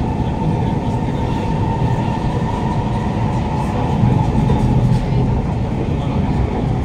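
Interior running noise of a Kawasaki Heavy Industries C151 (GTO-VVVF) metro car at speed: steady wheel-on-rail rumble with the car's traction motor drone. About four seconds in, a train passing on the opposite track makes it briefly louder.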